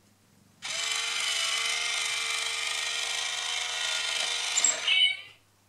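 Itazura cat coin bank's small electric gear motor whirring steadily for about four and a half seconds as the toy cat pops out of the box. There is a brief louder, higher-pitched sound just before it stops suddenly.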